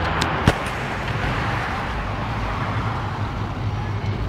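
City road traffic noise: a steady rumble of cars going by. Two sharp knocks sound in the first half-second.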